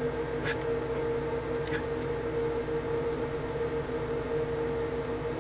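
A steady mid-pitched electrical hum, with two light clicks about half a second and a second and a half in.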